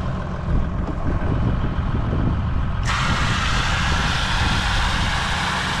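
Water jetting out of an open stock-water pipe at a trough under high pressure: a loud rushing hiss that starts suddenly about three seconds in, over a steady low rumble. The force of the spray shows strong pressure in the farm's new water scheme.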